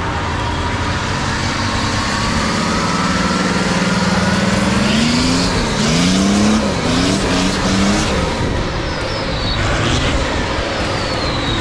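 Modified off-road 4x4 race truck's engine working hard through mud: held at a steady pitch at first, then revved up and down several times in quick blips around the middle.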